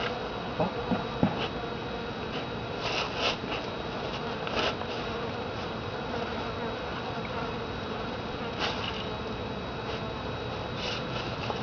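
A dog pushing loose grave dirt with its nose: a few short, soft scuffs, over a steady buzzing hum.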